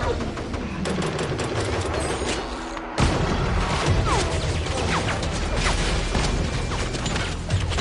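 Action-film gunfight soundtrack: rapid rifle gunfire and hard impacts. The sound drops briefly just before a sudden loud hit about three seconds in, and the shots and crashes carry on after it.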